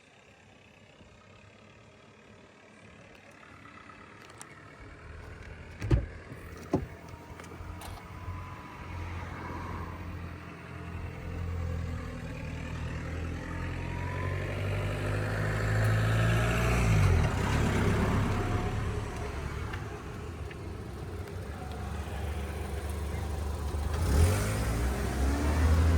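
Car engine, the Audi SQ5 TDI's V6 diesel. After two sharp thuds about six seconds in, it runs and grows steadily louder, with a falling sweep in pitch about two-thirds of the way through and another thud near the end.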